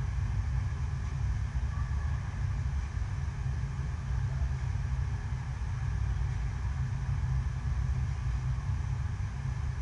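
Steady low rumble and rushing water from an indoor artificial sheet-wave surf machine, its pumps driving a constant flow of water up the wave surface.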